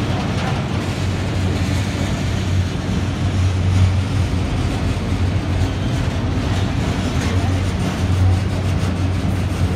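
Autorack freight cars rolling past on the rails: a steady low rumble of wheels and car bodies that swells and fades as the cars go by, with some light clicking near the end.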